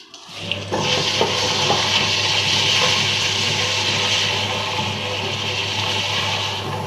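Electric wet grinder running with a steady motor hum under the rasping, wet grinding noise of its stones working soaked millet, ragi and corn into batter. It starts about half a second in and stops abruptly at the very end.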